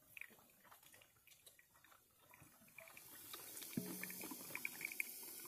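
Mr. Coffee drip coffee maker brewing, with coffee trickling and dripping into the glass carafe. Faint scattered drips at first, then a hiss builds from about three seconds in, with a short low hum partway through.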